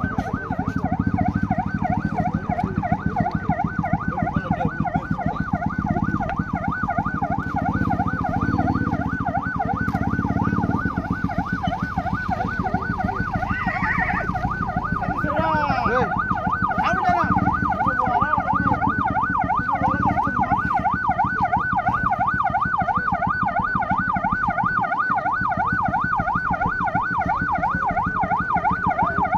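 Emergency vehicle siren in a rapid yelp, rising and falling several times a second, over a steady low rumble. Another gliding tone briefly joins it around the middle.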